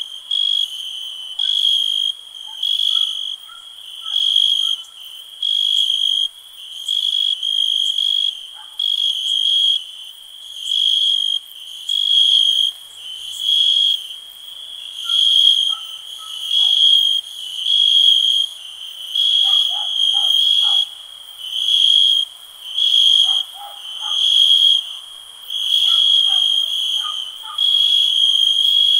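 Crickets chirping at night in a steady rhythm of high-pitched trilled chirps, about one a second. Fainter, lower short calls come in now and then.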